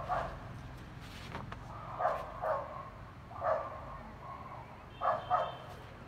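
A dog barking several times, some barks coming in quick pairs.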